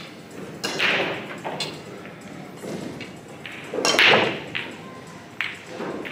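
Nine-ball break shot on a pool table: the cue ball is driven hard into the rack about a second in, scattering it, followed by balls clacking together and off the cushions. A louder knock comes about four seconds in.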